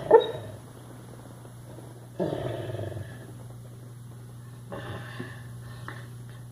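Sleeping dog snoring: three snores about two and a half seconds apart, the first a short sharp one and the loudest.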